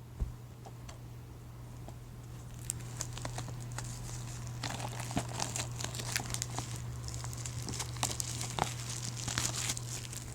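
Plastic shrink-wrap being torn and crinkled off a DVD case: a few light clicks at first, then a busy run of crackling and rustling from a few seconds in.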